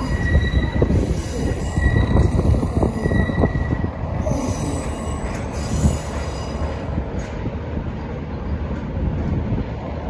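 V/Line N set passenger carriages rolling slowly through pointwork, their steel wheels squealing in short high-pitched tones on the curve during the first few seconds. Under the squeal is a heavy rumble, with knocks as the wheels pass over rail joints and frogs.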